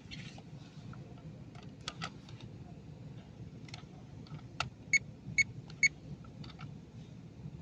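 Scattered light clicks and rattles of handling, then three short electronic beeps about half a second apart around the middle, each a clear high tone, over a faint low hum.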